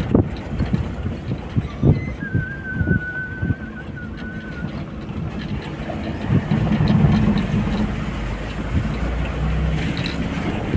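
Interior of a Toyota vehicle driving slowly on a rutted dirt track: the engine hums steadily and the cabin knocks and rattles over bumps, most often in the first couple of seconds. About two seconds in, a thin high whistle holds for a couple of seconds, and the engine swells louder a little past the middle.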